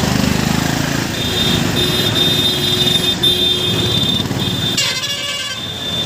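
Vehicle horn honking repeatedly in blasts of different lengths, with a rougher blast about five seconds in, over crowd chatter on the street.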